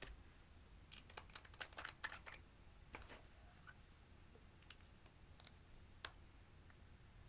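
Clear slime being worked by hand, giving small sharp clicks and crackling pops: a quick cluster about a second in, then single clicks about three seconds in and shortly before the end, over near silence.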